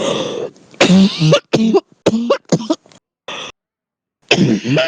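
A heavy smoker's deep, chesty cough: a coughing fit of many harsh, voiced coughs in quick clusters with short breaks between them.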